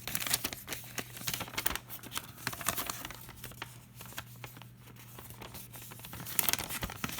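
Small plastic Lego parts bag crinkling and crackling irregularly as it is handled and opened.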